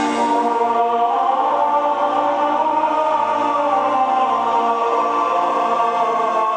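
Show music with choir-like voices holding long, steady chords.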